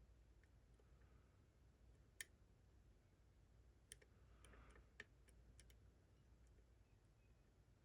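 Near silence with faint, sparse clicks of a pick working the pins of a Ruko Combi 2 sidebar lock. Three sharper clicks come about two, four and five seconds in.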